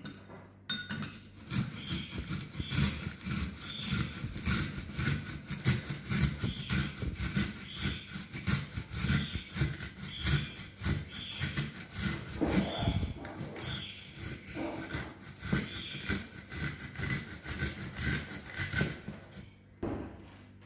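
A small red onion being grated by hand on a fine grater: quick, rhythmic rasping strokes that go on steadily and stop just before the end.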